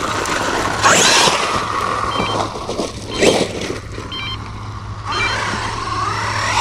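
Electric drive motor of a Losi Super Rock Rey RC truck whining, revving up and down in surges as it is driven off-road.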